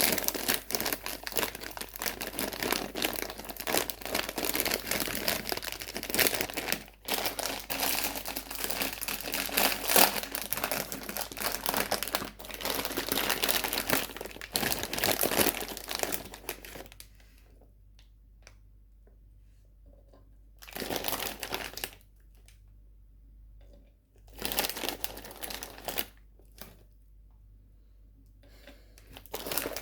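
Sweet wrappers crinkling as they are handled and unwrapped: continuous for about the first seventeen seconds, then in three short bursts separated by quiet.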